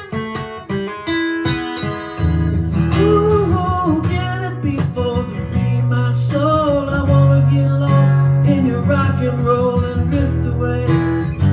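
Acoustic guitar strummed in chords, an instrumental break in a song, getting fuller and louder about two seconds in.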